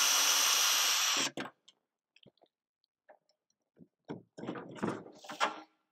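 A cordless drill fitted with an extension bar runs steadily with a high whine as it backs a screw out of a wooden crate, then stops about a second in. Later comes a short run of knocks and rattles as the wooden crate is handled.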